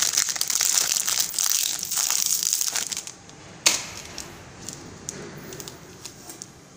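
Sealed plastic film pillow bags crinkling as they are handled and bent for about three seconds. Then a sharp tap as one is set down on the machine's metal panel, followed by a few faint crinkles.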